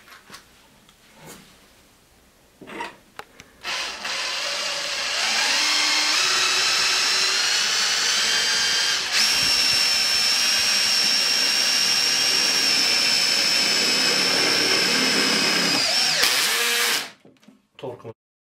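Einhell TE-CD 18/50 Li-i BL cordless brushless drill driver in screwdriving mode, driving a screw into metal. Its motor runs with a steady whine for about thirteen seconds, dips briefly around the middle, comes back slightly higher, then stops suddenly. There are a few light handling clicks before it starts and after it stops.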